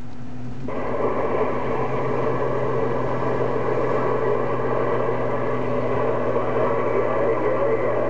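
Steady static hiss from a Uniden HR2510 radio receiving on 27.085 MHz with no voice on the channel. It comes on under a second in, over a low steady hum.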